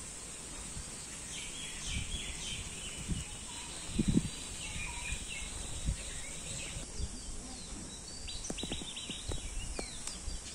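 Open-air ambience with birds chirping on and off, and a few low thumps, the loudest about four seconds in.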